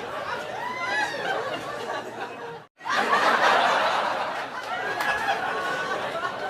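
Laughter sound effect: several voices laughing and snickering over one another. It cuts out for an instant nearly three seconds in, then comes back as a louder burst of laughter, the same stretch of laughter repeating in a loop.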